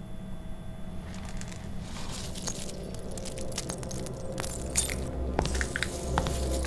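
Loose teeth and broken glass shards clicking, clinking and scraping on a hard floor as they are raked together by hand, a dense run of small clicks that grows busier. A low steady drone swells in about two-thirds of the way through.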